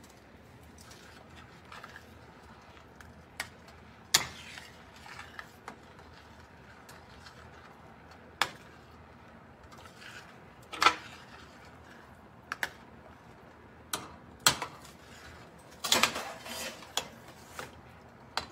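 A metal ladle clinking and scraping against a stainless steel pan as a thin yogurt-and-potato curry is stirred. There are about a dozen irregular sharp clinks, the loudest about four seconds in, near the middle and a couple of seconds from the end.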